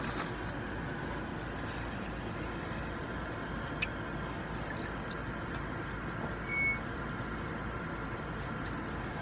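Steady low hum inside a car, with a few small clicks and a person drinking from a water bottle in the later part.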